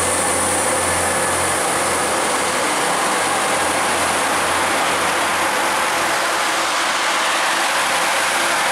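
A coupled pair of Northern Ireland Railways CAF 3000 Class diesel multiple units pulling out and running away along the track, a steady loud noise of engines and wheels with a high hiss. A low hum in it fades after about two seconds.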